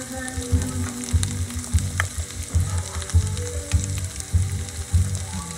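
A pot of mixed beans at a hard, rolling boil, bubbling with irregular low bloops under a steady hiss, while a spoon is drawn through the beans.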